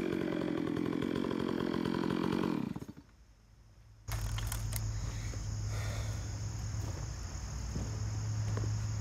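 Holzfforma G388 72cc two-stroke chainsaw idling steadily, then switched off about three seconds in and dying away to a second of quiet. After that comes a steady high insect drone over a low steady hum.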